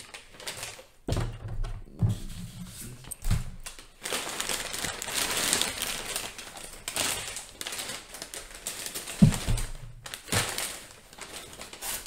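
Thin plastic shopping bag rustling and crinkling as hands rummage through it and pull a boxed item out, with a few dull knocks of boxes being handled; the sharpest knock comes about nine seconds in.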